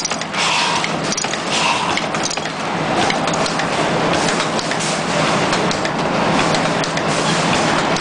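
YH-005D automatic terminal crimping machine running, a steady mechanical clatter with a repeating stroke about once a second in the first couple of seconds, then a denser, more even clatter.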